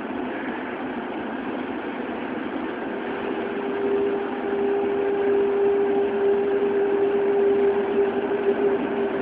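Toei Oedo Line 12-000 series subway car pulling away from the station. Its Hitachi GTO-thyristor VVVF inverter, driving linear induction motors, sets up a steady fixed-pitch whine from about three seconds in. Beneath it the running noise grows louder as the train gathers speed.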